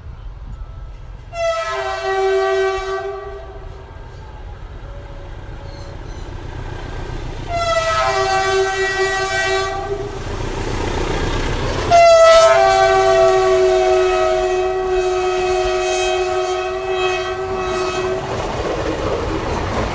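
Philippine National Railways train horn sounding three times: two short blasts, then one long blast of about six seconds. The train rumbles and clatters on the rails as it comes close and passes.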